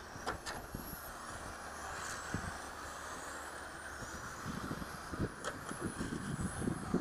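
Electric radio-controlled race cars running around the track, their motors giving high thin whines that rise and fall in pitch as they speed up and slow down. From about the middle on, gusts of wind thump on the microphone.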